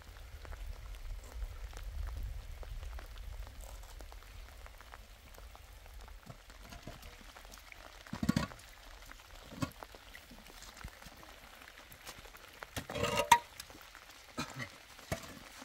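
Light rain pattering steadily, with a low wind rumble on the microphone in the first few seconds. Hollow concrete blocks knock and scrape as they are lifted and shifted: once about eight seconds in, and loudest around thirteen seconds.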